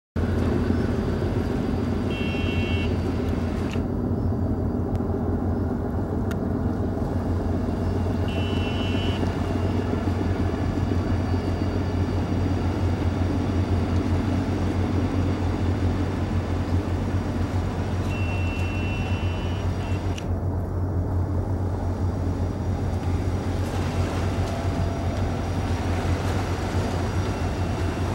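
Diesel engines of a large multi-deck river passenger launch running steadily as it passes, a constant low hum with a wash of noise above it.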